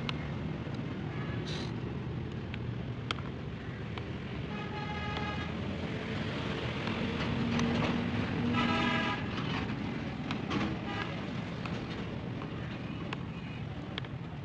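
Steady traffic rumble with a vehicle horn honking twice, about five seconds in and again near nine seconds, plus a few light clicks.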